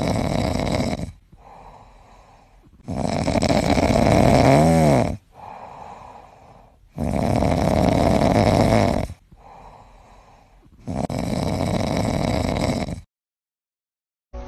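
Small Chihuahua snoring loudly in deep sleep: long, rasping snores of about two seconds each, coming roughly every four seconds, four in all, with soft breathing between. The sound stops abruptly near the end.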